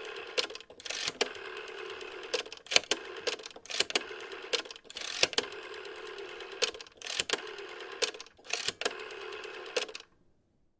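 Rotary telephone dial being wound round and released for a run of digits, each release followed by the dial's whirring spring return with clicks, and short pauses between digits. It stops about ten seconds in.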